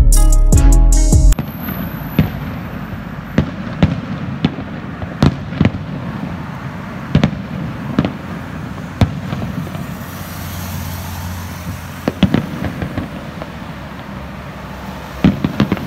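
Loud intro music that cuts off about a second in, then a fireworks display: separate booming shell bursts every second or so over a steady background noise, with a quick run of bangs near the end.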